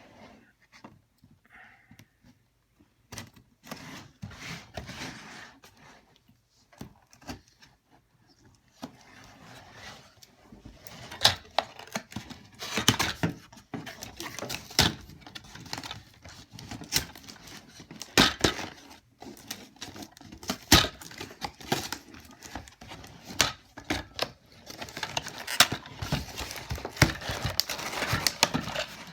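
Toy box packaging being cut and torn open by hand: sharp clicks, snaps and crinkling of cardboard and plastic. Sparse at first, then busier and louder from about a third of the way in.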